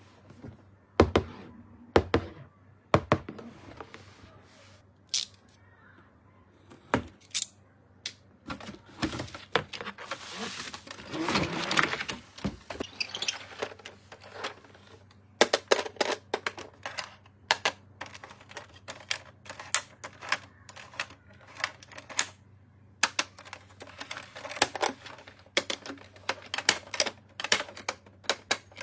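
Hands handling plastic toys and their packaging: a long run of sharp clicks and taps, with a stretch of crinkling packaging near the middle.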